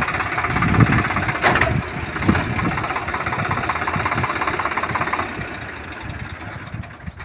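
Swaraj 744 XT tractor's three-cylinder diesel engine running as the tractor rolls slowly, with one sharp click about one and a half seconds in. The engine sound fades over the last couple of seconds.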